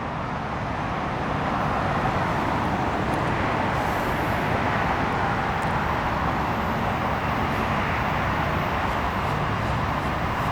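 Steady rushing vehicle noise that builds up in the first second and then holds; no horn sounds.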